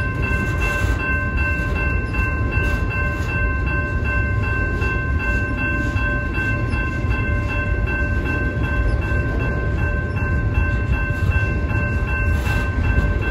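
Freight train cars rolling past a grade crossing: a steady rumble of steel wheels on rail, with steady high ringing tones held over it.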